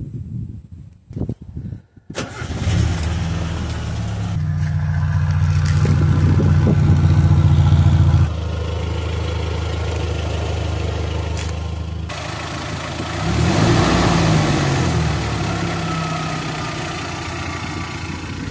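1996 Suzuki X-90's 1.6-litre four-cylinder engine starting about two seconds in. It is held at higher revs for a few seconds, drops back to a steady idle, and is briefly revved again later. It is grumbling through an exhaust leak that the owner places toward the front of the system.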